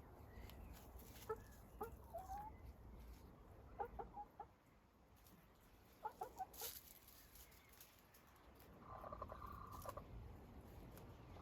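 Backyard hens clucking quietly in short groups of notes about a second, four seconds and six seconds in, with one longer drawn-out call near the end.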